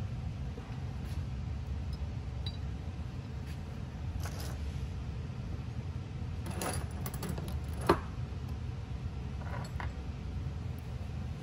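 Scattered small metallic clicks and clinks from handling the stripped FX Wildcat MK3 air rifle action, with a cluster of clicks in the middle and one sharp click about eight seconds in, over a steady low hum.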